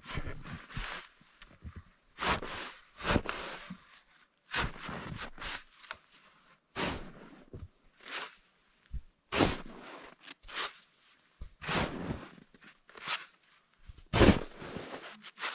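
Plastic snow shovel digging into deep, soft snow: about a dozen short scraping, crunching strokes as it cuts in and throws snow, roughly one a second.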